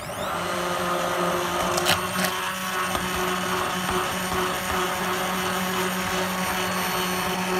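Stainless-steel hand blender spinning up and running at a steady pitch, blending thick tomato soup in a glass bowl. There are two brief clicks around two seconds in.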